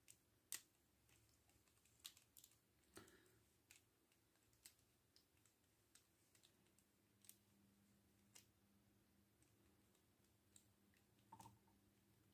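Scattered small clicks and taps of hard plastic toy parts being handled and pushed together as a transforming figure is folded up, the loudest about half a second in.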